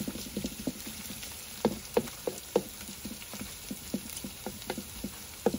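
Snake meat stir-frying with fresh turmeric in a pan: irregular crackles and pops over a faint sizzle, with a few louder pops.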